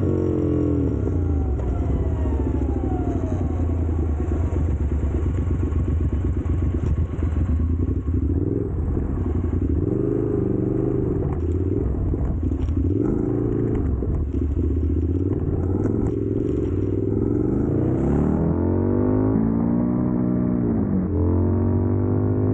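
Motorcycle engine running while riding, its pitch falling at the start, wavering through the middle, then rising and falling again near the end as the throttle is opened and closed.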